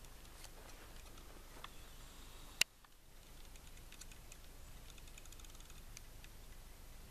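Faint, scattered ticks and crackles of someone moving on foot through forest undergrowth, with one sharp click about two and a half seconds in.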